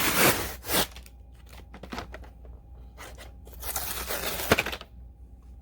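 Hot Wheels toy package being torn open by hand: cardboard tearing and plastic crinkling in two bouts, near the start and again about four seconds in, with scattered small clicks between.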